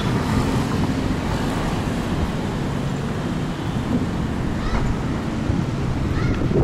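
City street traffic ambience: a steady low rumble of engines and road noise from passing cars, with a few short faint higher sounds near the end.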